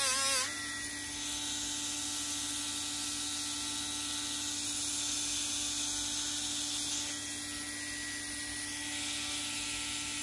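Small rotary tool with a polishing disc running with a steady whine. For the first half-second the disc is against the copper ball and the pitch wavers. After that the tool runs free at an even pitch.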